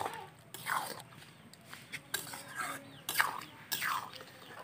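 Metal spatula stirring rice in an aluminium kadai: several sharp knocks against the pan, each with a short falling scrape as the spatula drags along the metal.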